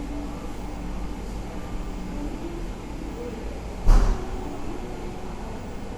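Coffee-shop ambience: a steady low rumble with faint chatter of customers, and one sharp thump about four seconds in.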